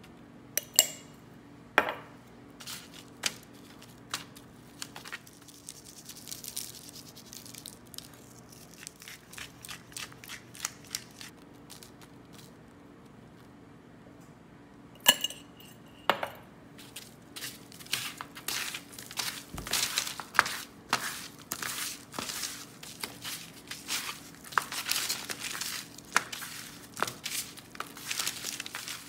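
Raw chicken wings being handled and turned over on a parchment-lined sheet pan: paper crinkling and pieces flopping down in a busy run of short rustles and taps in the second half. A few sharp clinks of kitchenware come near the start and again about halfway through.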